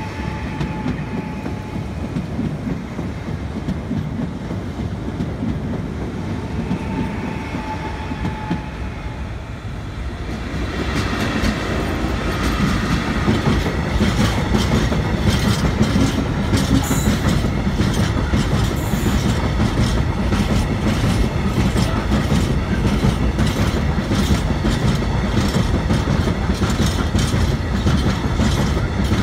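Freight train of open-top wagons passing close by: a rumble that gets much louder about ten seconds in, then a steady run of wheels clicking over the rail joints with a rolling rumble underneath.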